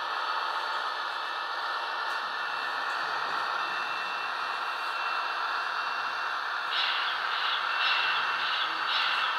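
Sound from HO-scale model locomotives running on a layout: a steady hiss with a faint thin high whine. About two-thirds of the way through, a rhythmic high-pitched pulsing of about three beats a second joins in.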